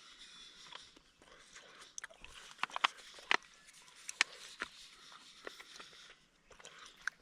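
Quiet eating sounds: chewing with scattered sharp clicks and crackles, busiest a little before the middle, over a faint hiss.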